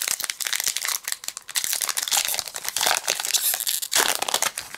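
A baseball card pack's wrapper being torn open and crinkled by hand: a run of dense crackling, loudest from about two to three and a half seconds in and again around four seconds.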